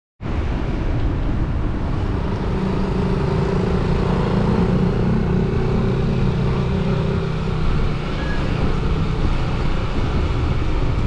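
Wind rushing over a bike-mounted GoPro's microphone while cycling, with a motor scooter's engine humming close by that fades about eight seconds in.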